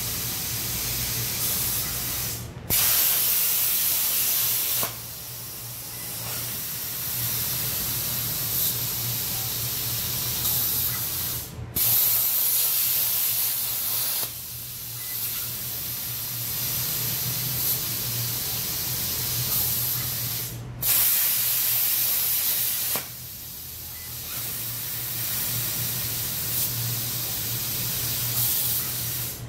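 CNC plasma cutter torch hissing steadily as it cuts thin 6061 aluminium sheet, over a low steady hum. The hiss breaks off sharply three times, about nine seconds apart, and comes back louder for a couple of seconds each time.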